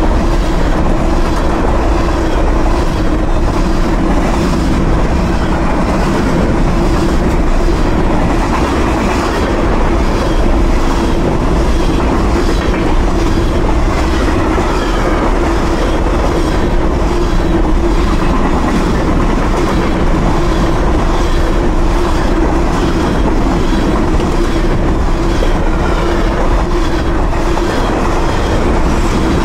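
Covered hopper cars of a freight grain train rolling past at speed: loud, steady rumble of steel wheels on rail with a regular clickety-clack and a steady hum underneath.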